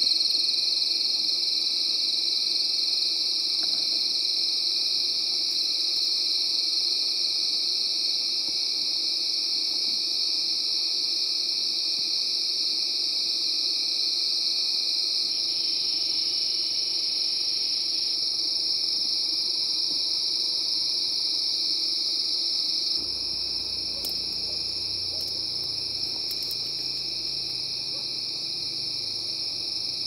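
Chorus of night insects such as crickets, a steady high-pitched trilling without pause. It becomes slightly quieter about 23 seconds in.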